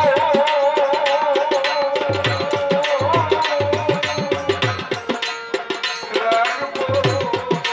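Baul folk music: hand drums, tabla-like, keep a quick steady rhythm while a long wavering held melody note runs over them through the first half, with a shorter melodic phrase near the end.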